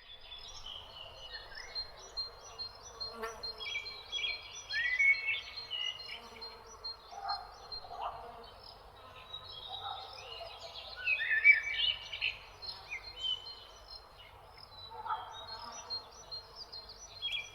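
Several birds singing and chirping together: short repeated notes and rising whistles that overlap, over a steady low background hiss.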